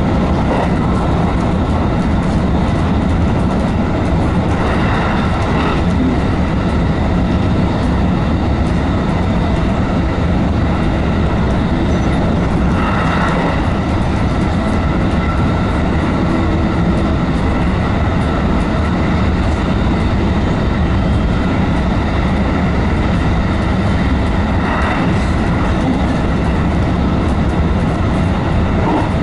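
Running noise of a renewed JR West 221 series electric train heard from inside the car: a steady rumble of wheels on rail, with three short swells of brighter rail noise about 5, 13 and 25 seconds in.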